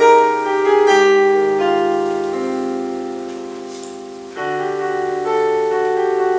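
Slow background piano music: held chords that fade away, with a new chord struck about four seconds in.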